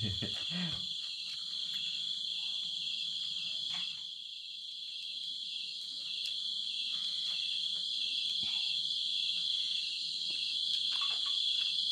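Steady chorus of night insects, a continuous high-pitched trilling like crickets, with a few faint clicks and taps.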